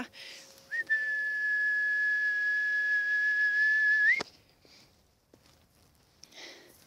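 A single long, steady whistle held at one pitch for about three and a half seconds, calling a dog. It flicks up briefly at the start and end, then stops suddenly.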